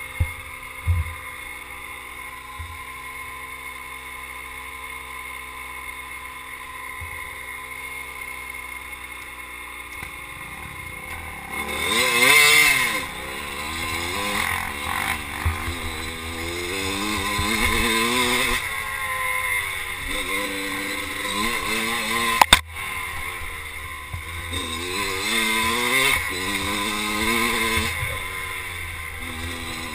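Dirt bike engine running steady and low, then from about twelve seconds in revving up and down again and again as the throttle is worked. There is a single sharp knock a little past twenty-two seconds.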